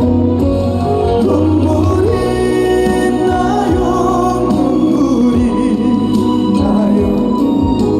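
Trot ballad music from a live stage performance: a sustained melody line over a steady bass and accompaniment.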